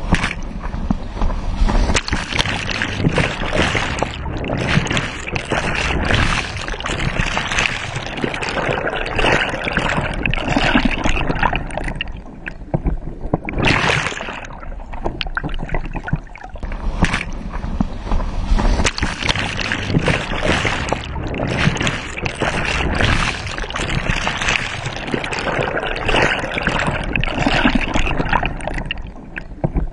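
Water rushing and splashing over a bodyboard being towed fast across a lake, right at the board-mounted camera. Twice the sound turns muffled and gurgling as the board plunges under the surface.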